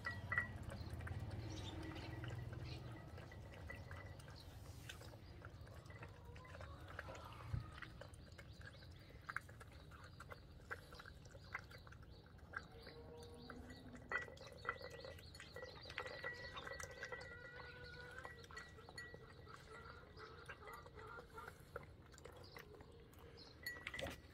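A dog and a young chick eat side by side from one food bowl, with faint, scattered clicks of chewing and pecking at the food.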